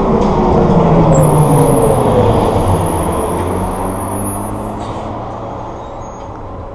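Loud engine noise with several tones that slowly fall in pitch as it fades away over several seconds, like engines winding down.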